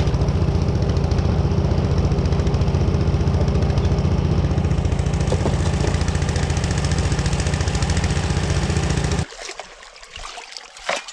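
Small engine driving a trommel's dredge pump, running steadily, then cutting off abruptly about nine seconds in. A few light knocks follow in the quiet.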